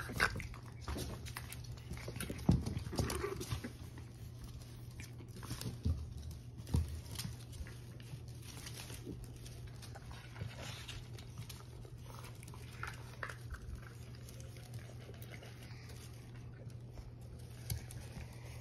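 French bulldog puppies scuffling and eating kibble from metal bowls on a hardwood floor: scattered clicks, taps and knocks, busiest in the first few seconds and again around six to seven seconds in, over a steady low hum.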